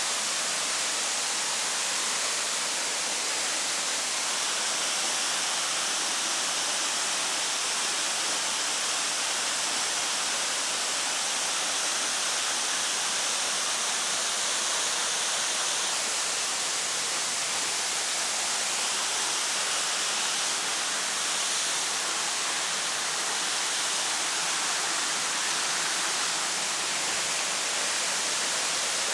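Waterfall: a steady, unbroken rush of falling water, bright and hissy.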